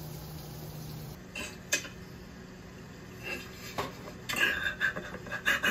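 A ladle knocking and scraping in a stainless steel saucepan as food is served into a bowl: a few scattered clinks at first, then a quick run of sharp metallic clinks with brief ringing near the end.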